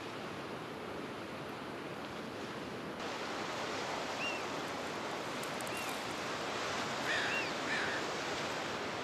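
Pacific Ocean surf washing steadily on the shore, growing louder about three seconds in, with a few short high chirps over it in the second half.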